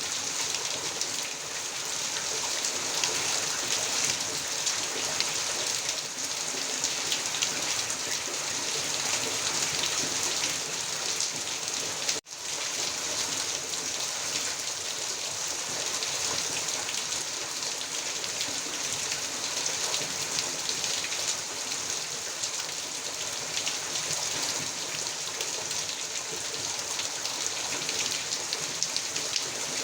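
Heavy rain falling steadily, an even hiss of many drops. The sound cuts out for an instant about twelve seconds in.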